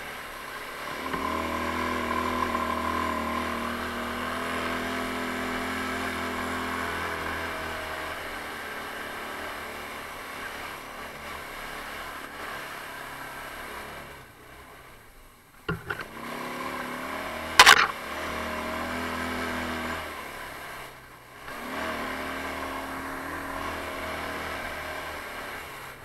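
Taotao 150cc ATV's single-cylinder engine running under throttle on a rough trail, its revs easing off twice. A sharp knock comes a little past the middle.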